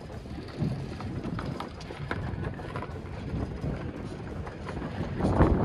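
Low vehicle engine rumble with wind buffeting the microphone, scattered faint knocks, and a louder swell just before the end.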